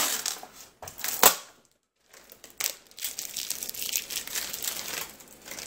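Thin clear protective plastic film being peeled off a router's casing and crinkled in the hand: irregular crackling, with a sharp click about a second in.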